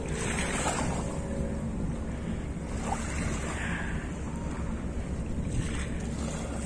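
Wind buffeting the microphone over choppy open water, a steady low rumble with the wash of small waves.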